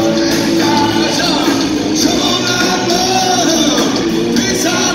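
Hard rock band playing live at full volume in a large hall, with drums, guitar and a sung lead vocal.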